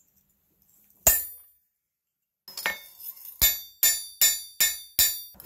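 Blacksmith's hammer striking a punch through a hot steel hinge pintle plate on an anvil: one heavy blow about a second in, then, after a pause, a run of about seven quicker hammer blows on the plate on the anvil face, each with a bright metallic ring.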